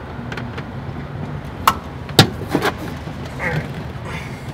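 Several short, sharp knocks and clicks of hands and parts being handled in an open engine compartment, the loudest about two seconds in, over a steady low background hum.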